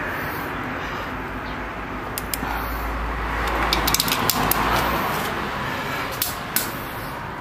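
Rustling handling noise with a scattering of light metallic clicks and taps from a spanner working on the diesel injection pump's bolts, and a low rumble through the middle.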